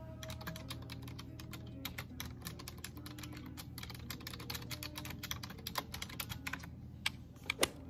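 Fast typing on a computer keyboard with long acrylic nails: quick, irregular key clicks, with a couple of louder clacks near the end.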